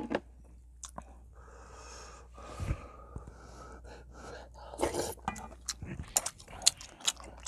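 Close-up eating sounds of a person having spicy soup from a spoon: slurps and heavy breaths, then from about six seconds in a run of small wet chewing clicks. A sharp click right at the start is the loudest sound.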